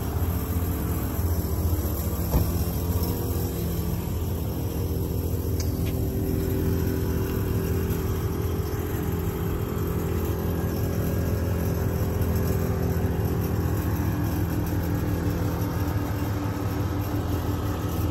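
Onboard air compressor of a Ram 3500 tow truck running, a steady mechanical drone with no break.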